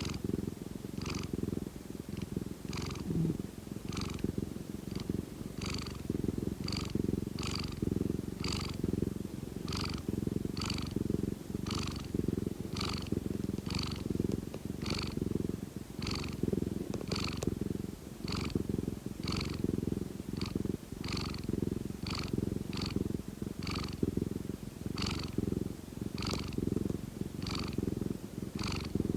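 Domestic cat purring steadily, a continuous low rumble with a soft, higher hiss repeating a little more than once a second.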